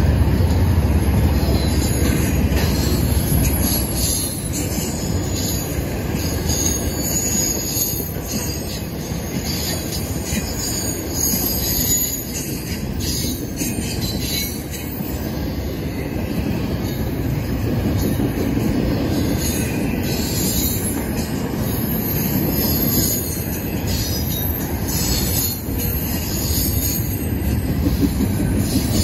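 Double-stack intermodal freight train's well cars rolling past: a steady rumble and clatter of steel wheels on the rails, with high-pitched wheel squeal coming and going.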